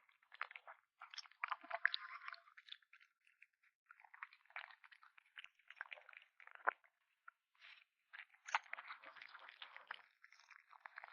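A kitten chewing and crunching on meat: irregular runs of quick bites with short pauses between them.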